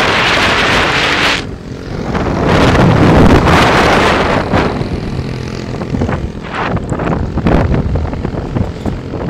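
Wind buffeting the microphone of a moving motorbike, with a small engine running underneath. The rush of wind dips briefly about a second and a half in, then comes back in gusts.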